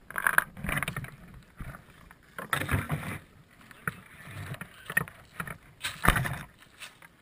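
Handling noise on an RC plane's airframe close to its mounted GoPro as the plane is moved: irregular bumps, knocks and rustles, with the loudest bumps about half a second, three seconds and six seconds in.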